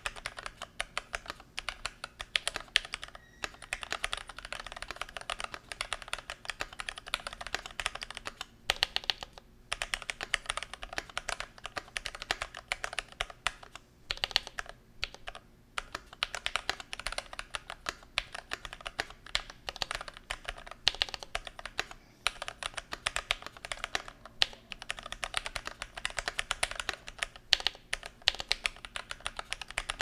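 Typing on an IDOBAO ID80 75% mechanical keyboard fitted with Gateron Yellow KS3 linear switches, PBT Cherry-profile keycaps and EVA foam for sound dampening. The keystrokes come in a rapid run, broken by a few brief pauses.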